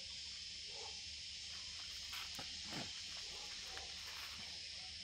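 Insects chirring steadily in a high, even drone, with a few faint clicks and one short low falling sound near the middle.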